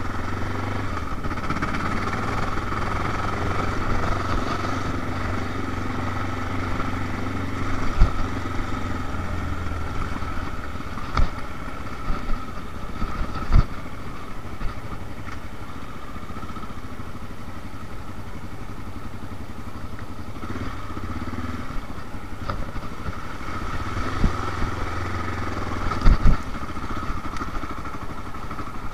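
Honda XR650L's single-cylinder four-stroke engine running steadily under way on a dirt trail, with a few sharp knocks as the bike jolts over the rutted, muddy track.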